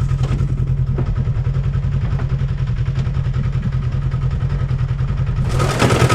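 Polaris RZR XP 4 1000 side-by-side's engine running steadily, with a loud rushing noise coming in near the end.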